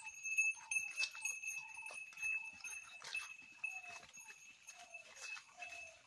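Two calves moving off along a grassy path through undergrowth, their steps heard as faint scattered thuds and rustles. A steady high-pitched ringing runs underneath.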